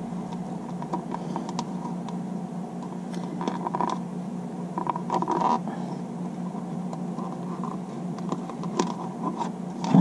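Soft rustles and scrapes of cardstock and thin grosgrain ribbon being handled while a knot is tied around a stamped card panel, with a few light clicks. A steady low hum runs underneath.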